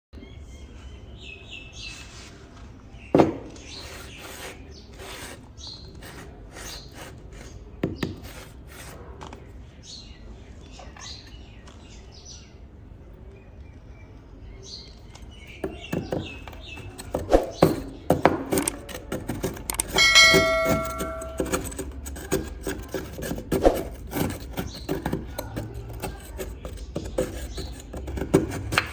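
Small hard objects being handled on a work surface: scattered clicks, taps and knocks, busier in the second half, over a low steady hum. A brief squeaky tone sounds about twenty seconds in.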